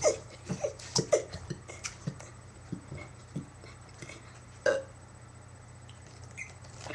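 A person's short, weak burps and gulps of air: several small ones in the first two seconds, then a single louder one about four and a half seconds in. A poor burp, which he scores a 1.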